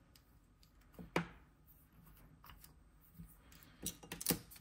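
Small clicks and knocks of nail-stamping tools, a clear plastic jelly stamper and a metal stamping plate, being handled and set down on a table: one sharp knock about a second in, then a quick run of clicks near the end.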